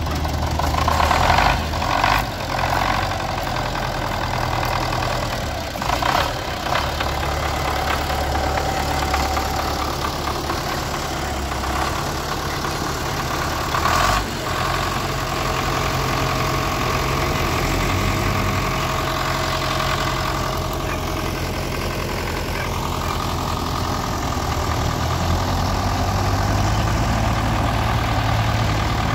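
Four-cylinder diesel engines of MTZ-82 tractors running, one of them just tow-started after its fuel injection equipment was fitted, then idling. A single sharp clank about fourteen seconds in.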